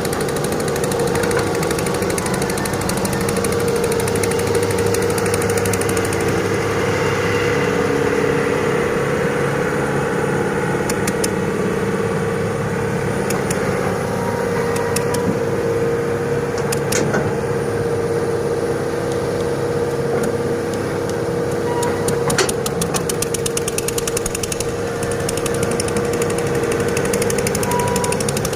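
Excavator running steadily with a constant engine hum, with a few sharp clicks now and then.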